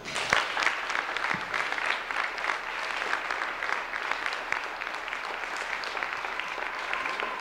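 Audience applauding, the clapping breaking out all at once and then holding steady.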